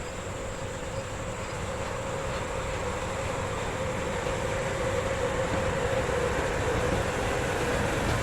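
Train running, its rumble and steady hum growing gradually louder as it approaches.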